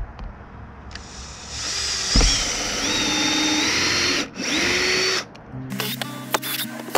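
Cordless drill boring through the thin plastic wall of a storage tote. The motor spins up about a second and a half in with a rising whine, cuts out briefly around four seconds in, runs again and stops about five seconds in. Background music comes in near the end.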